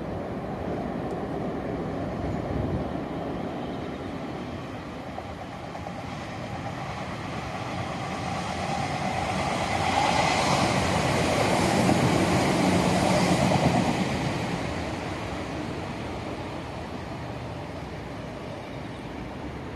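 Red Meitetsu electric train passing on the tracks below, its rumbling running noise swelling to a peak about halfway through and then fading away.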